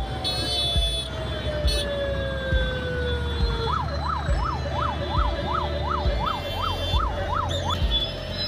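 Electronic emergency-vehicle siren, first a slow falling wail and then, about halfway through, a fast yelp sweeping up and down about three times a second. Regular low thumps run underneath.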